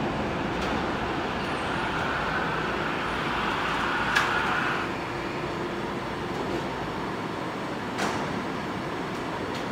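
SkyTrain train running by with a steady rumble and a brighter rushing band that dies away about five seconds in. Two sharp clicks, about four and eight seconds in.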